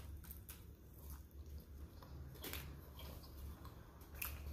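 A person chewing a mouthful of pizza: faint, scattered mouth clicks over a low steady hum.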